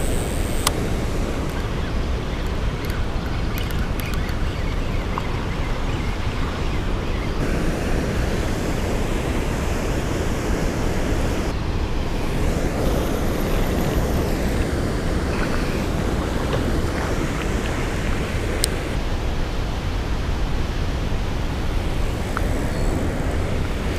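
Loud, steady rushing of water pouring through a spillway.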